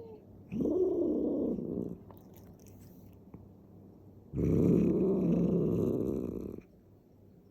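Cat growling in a fight with another cat: two long, low, rough growls, the first about a second and a half long, the second about two seconds.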